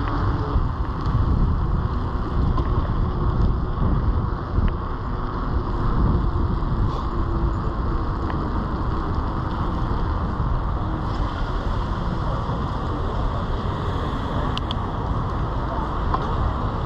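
Steady wind buffeting the microphone of a moving bicycle, with tyre and car traffic noise on a wet street.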